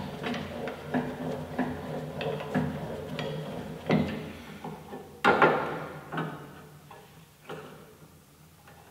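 Metal clicks and knocks as a framing square is handled and set against a bandsaw's table and blade, with one loud ringing metal clank about five seconds in; the knocks thin out toward the end.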